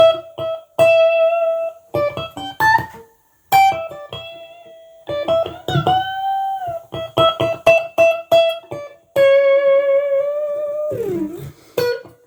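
Tomson Spirit Sounds Stratocaster electric guitar playing a single-note lead melody with picked notes. About six seconds in, one note is held and bent, and a little before the end the pitch slides down.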